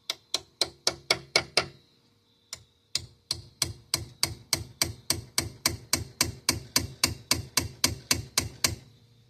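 Hammer blows on metal at a steady pace of about four a second: a short run of about seven, a single blow, then a longer run of about twenty that stops shortly before the end.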